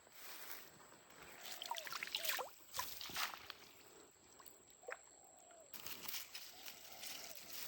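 Water sloshing and dripping, with a cluster of small sharp splashes about two to three seconds in and drops plinking now and then.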